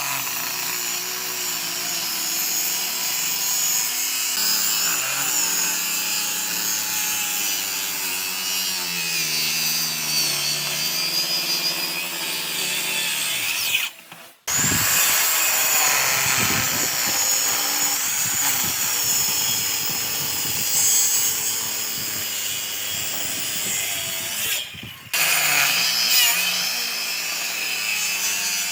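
A power tool working wood, running steadily with a shifting whine, briefly cut off twice, about halfway through and again near the end.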